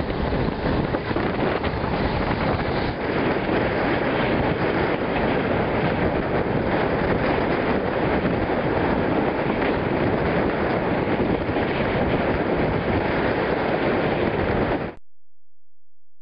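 Wind rushing over the microphone together with the running noise of a moving passenger train, heard from an open coach window. It cuts off suddenly near the end, leaving a steady low tone.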